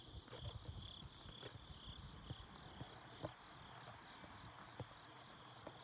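Faint insects chirping, a regular high pulse about three times a second over a steady high drone, with a few soft clicks.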